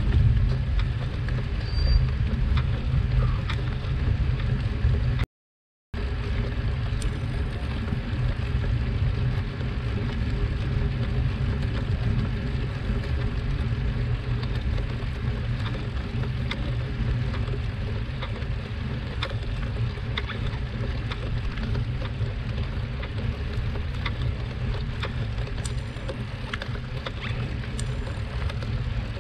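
Steady low rumble of wind and road vibration on the microphone of a bike-mounted camera during a slow uphill road-bike ride, with a few faint clicks. The sound cuts out completely for about half a second around five seconds in.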